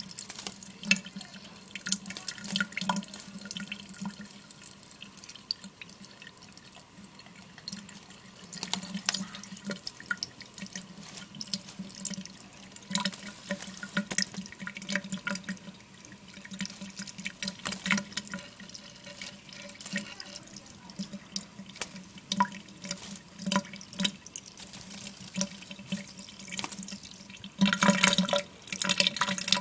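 Small pet bird bathing in water in a sink, splashing in irregular bursts. A louder, denser flurry of splashing comes near the end.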